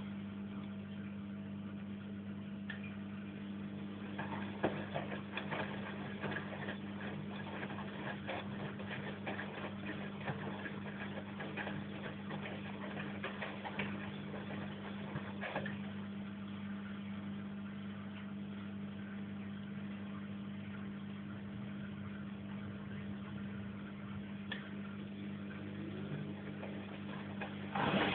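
Bosch washing machine running through its final rinse: a steady low hum with scattered clicks and rattles of the laundry and water in the drum, and a sudden louder sound near the end.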